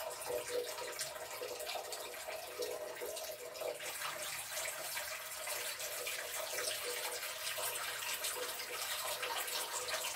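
Water running steadily from a single-lever mixer tap into a ceramic washbasin, the basin filling with the plug closed to test the newly fitted siphon for leaks.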